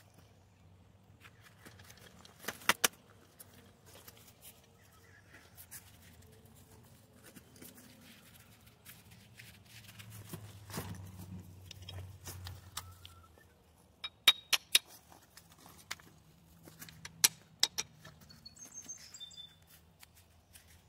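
Scattered sharp knocks and clicks, a few at a time, most of them in the second half. A low rumble swells and fades in the middle, and a few high bird chirps come near the end.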